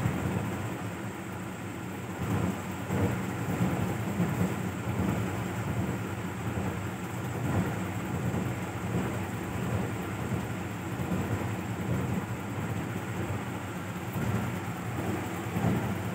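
Cat purring: a steady, low, fluttering rumble.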